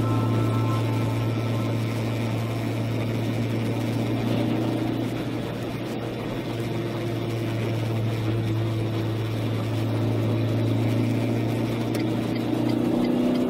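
Steady drone of a car driving, heard from inside the cabin: a low engine hum with slowly shifting pitch and an even hiss of tyres on a wet road.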